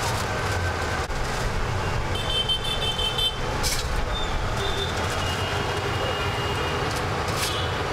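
Street traffic noise: a steady low rumble of engines, with thin high-pitched tones sounding briefly several times and two short sharp noises.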